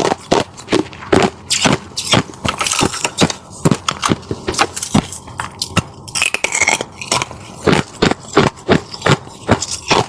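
Frozen ice crust crunching and scraping in quick, irregular strokes, about two to three sharp cracks a second.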